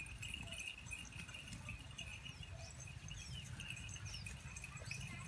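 Faint outdoor ambience: a steady high-pitched chorus of calling creatures, with short falling chirps here and there, over a low rumble.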